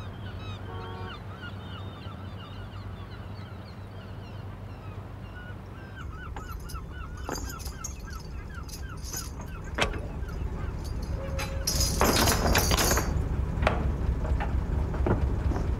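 A flock of birds calling over the low steady drone of a boat engine. About six seconds in the engine throb grows heavier, with scattered knocks and a loud noisy clatter about twelve seconds in.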